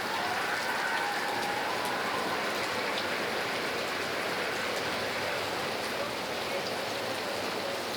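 Steady rain falling: an even hiss with a few sharper drop ticks scattered through it.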